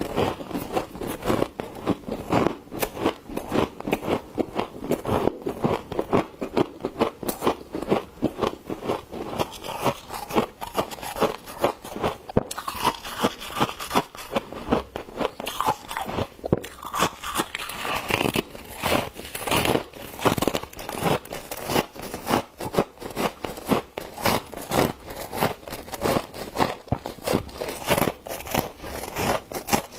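Humidifier frost crunching over and over in quick, irregular strokes, several each second.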